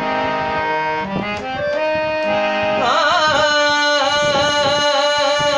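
Man singing sargam to his own harmonium accompaniment. The harmonium holds steady notes that change in steps, and about three seconds in the voice settles on a long held note with fast wavering ornaments.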